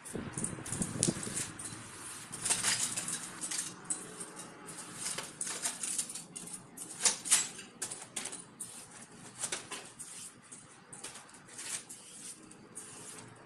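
Aerosol spray paint can hissing in short bursts and longer strokes as lines are painted on a wall, the strongest about seven seconds in. A rustle of loose paper underfoot near the start.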